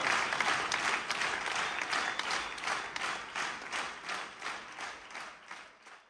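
Audience applauding, the clapping settling into an even beat of roughly three claps a second and fading out near the end.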